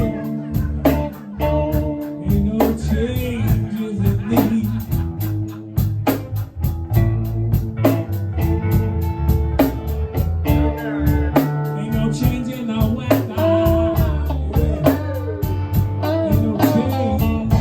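A live blues-rock band playing: electric guitar lines with string bends over bass and drums, and a cymbal ticking a steady beat.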